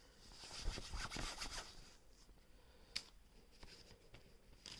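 Faint rubbing and scratching as hands handle a fabric flying disc stretched over a wire ring, mostly in the first two seconds, with a single sharp click about three seconds in.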